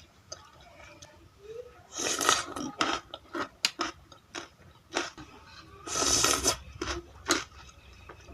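Close-up eating of seblak with noodles: wet chewing and crunching clicks. There are two louder, half-second noisy bursts, about two seconds in and again around six seconds.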